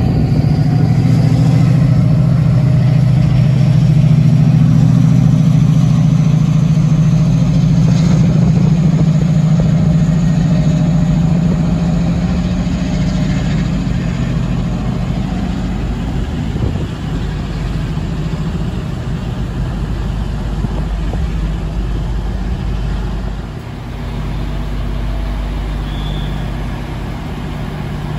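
Class 68 diesel locomotive's Caterpillar V16 engine running with a deep, steady drone, heard close up. It grows quieter after about twelve seconds.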